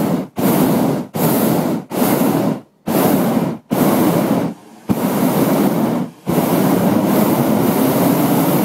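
Propane burner of a Cloud Hopper hot-air balloon firing in a run of short blasts, each under a second with brief gaps, then one long continuous burn from about six seconds in.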